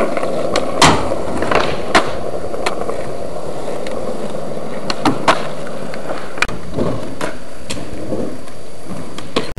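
Skateboard wheels rolling on smooth concrete, with several sharp clacks of the board hitting the ground as tricks are popped and landed, the loudest about a second in.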